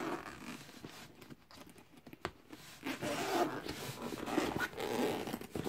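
Zip on a Ryobi fabric tool bag being pulled open, with rustling and handling of the bag; the scratchy zip sound is loudest in the second half.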